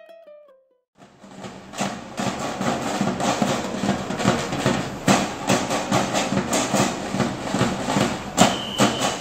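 Ukulele background music ends in the first second; then a marching band's drums beat a fast, dense rhythm of many sharp hits. A brief high tone sounds near the end.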